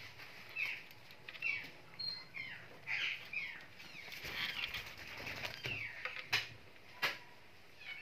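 A kitten mewing in a quick series of short, high, falling cries, followed by two sharp knocks near the end.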